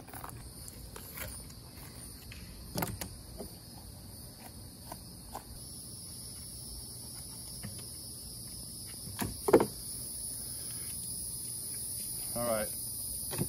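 Insects chirring steadily in a high, even buzz, with a second, higher band growing louder about halfway through. A few faint clicks of handling sound over it, and a sharp knock about nine and a half seconds in.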